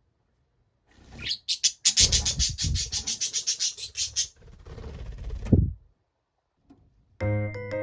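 Budgerigars calling: after a second of quiet, a fast even run of sharp chirps lasting about two seconds, then softer calls with a sliding note. Near the end, cheerful keyboard background music starts.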